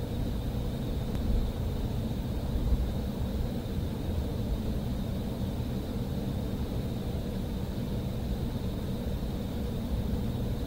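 Embraer ERJ-175's GE CF34-8E turbofans at taxi power, heard inside the cabin: a steady low rumble with a faint steady whine.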